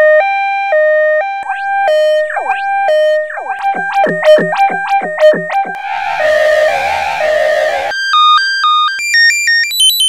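Two-tone hi-lo ambulance siren sound effect ("wee-woo") played in a string of edited variations, each about two seconds long. It starts with a plain two-note alternation, then adds sliding pitch sweeps, then becomes a heavily distorted, noisy version with wobbling pitch about six seconds in, and ends pitched high in fast-stepping notes.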